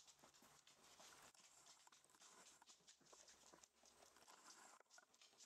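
Faint, irregular pattering of rough collie puppies' paws and claws on a wooden floor.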